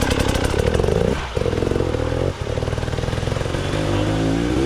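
Enduro dirt bike engine running on and off the throttle, dipping out briefly about a second in and again a second later, its pitch wavering and rising near the end.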